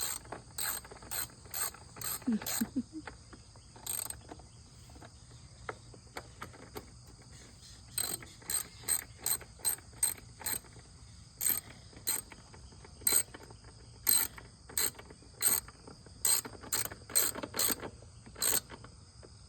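Hand tools clicking on the lawnmower in short, irregular strokes, a sharp click every half second to second, as the new carburetor and its fittings go back on. A steady high insect drone runs underneath.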